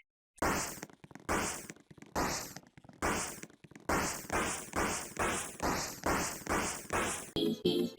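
A short noisy sound effect repeated in quick succession, about two times a second, each burst fading out, coming slightly faster toward the end.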